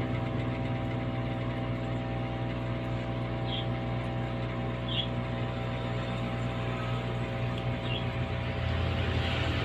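Steady electric hum of an aquarium air pump, with a noisy wash of bubbling from the airstone and a few faint high ticks.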